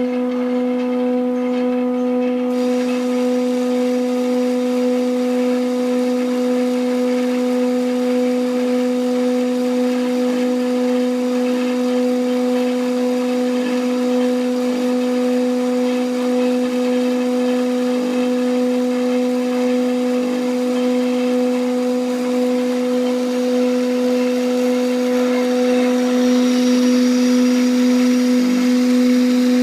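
A steady mechanical hum at one constant pitch with overtones, unchanging in level; a faint hiss joins it after about two seconds.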